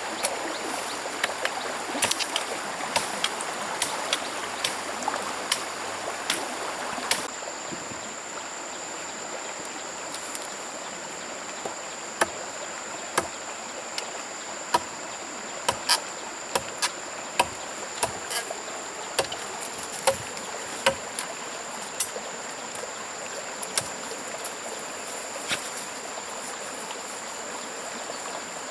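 Stream flowing with a steady high insect drone, broken by sharp knocks every second or so. The water is louder in the first few seconds and then drops back.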